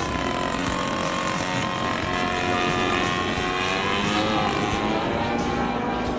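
The 40cc MVVS two-stroke petrol engine and propeller of a 2.15 m Zlin 50LS radio-controlled model aeroplane running in flight, its pitch rising about halfway through and then falling again.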